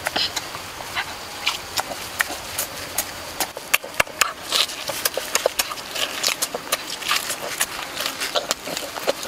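Close-miked eating sounds: wet chewing, lip-smacking and biting into the skin of a cooked pig's leg, heard as a quick, irregular run of smacks and clicks.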